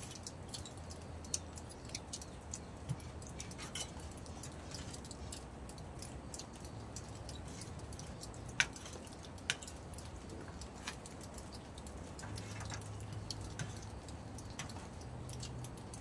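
People eating from a shared metal tray: spoons clink and tap against the metal in scattered small clicks, two sharper ones about halfway through, with quiet chewing and slurping. A faint low hum runs underneath.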